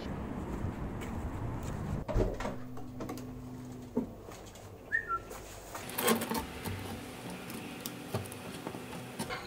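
A few short knocks and thuds, as of a door and of shopping being carried, with a short high two-note chirp about five seconds in.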